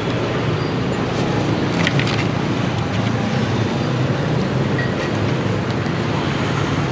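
Steady street traffic noise, an even hum that does not rise or fall, with a few light clicks about two seconds in.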